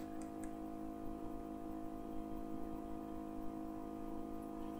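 A steady hum of several held tones, with a few faint clicks just after the start.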